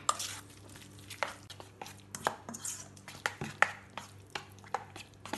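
A metal spoon stirring thick semolina and curd batter in a stainless-steel bowl, with irregular clinks and scrapes against the side of the bowl.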